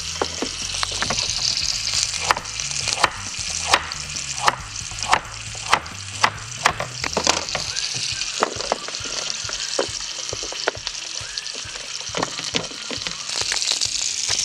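Carrots sizzling on a hot grill pan, a steady hiss. A string of sharp clicks and taps runs over it, most frequent in the first half.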